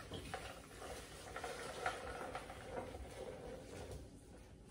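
Cream soda poured from a measuring cup into a blender jar over ice, a faint steady pouring with small ticks.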